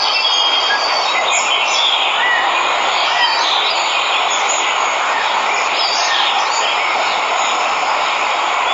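Steady rush of a waterfall, with birds chirping over it.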